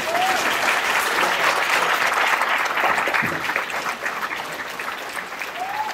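Audience applauding, loudest in the first few seconds and slowly easing off.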